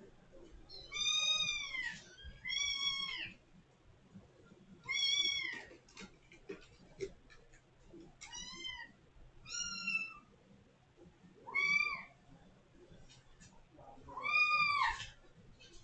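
A kitten meowing loudly and insistently at a closed door, about seven high calls that each rise and then fall in pitch, a second or two apart: calling to be let out.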